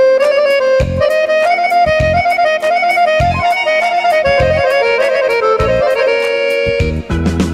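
Instrumental passage of a Balkan folk song: an accordion plays the lead melody over low bass-drum thumps.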